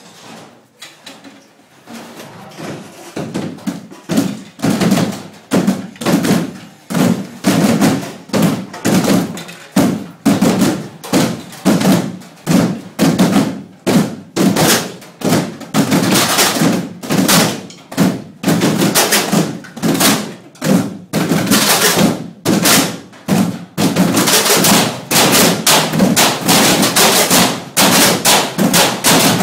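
Galvanized metal trash cans beaten as drums by a group of players with hands and sticks, in a repeated rhythm of strikes. It starts faint, grows loud a couple of seconds in, and the strikes come thicker near the end.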